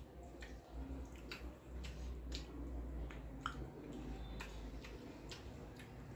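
Fingers mixing and squishing rice with chicken curry on a metal plate while eating by hand, with soft wet squelches and scattered sharp clicks.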